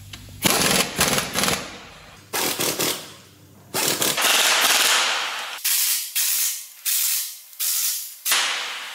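Impact wrench rattling in a series of short bursts with one longer run in the middle, driving bolts home.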